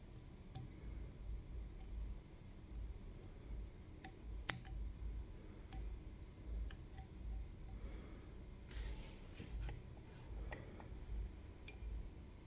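Lock picking on a CISA AP3 pin-tumbler lock: scattered small clicks and ticks of the pick and pins in the cylinder, one sharper click about four and a half seconds in, and a brief scratchy rustle near nine seconds.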